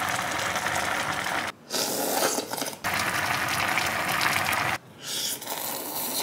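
Pot of seafood steamboat soup with noodles at a rolling boil: a dense bubbling hiss that cuts off and restarts abruptly three times. Near the end a shorter, quieter stretch as noodles are slurped.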